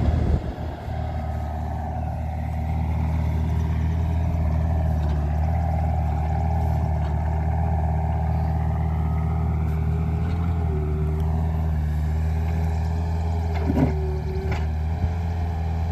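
Compact tracked excavator's engine running steadily while it digs, with a couple of short knocks near the end.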